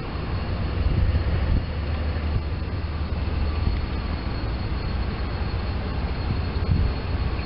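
Diesel freight locomotives drawing near, a steady low engine rumble.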